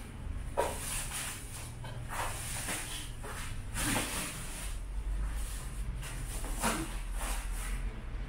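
Plastic stretch wrap rustling and a wooden shipping crate's slats scraping as the crate is pulled apart by hand, in several separate short rasps.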